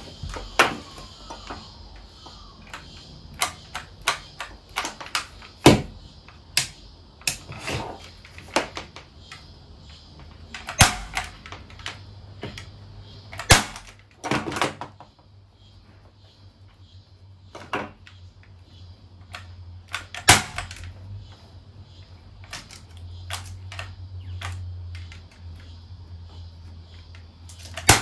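Corded Ozito electric staple gun firing staples through thick bouclé fabric into a headboard panel: sharp shots at irregular intervals, a handful much louder than the rest.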